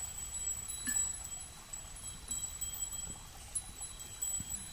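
High, ringing chime tones at several pitches, a new one struck about every second and left to ring, over a faint low rush of water from a small stream.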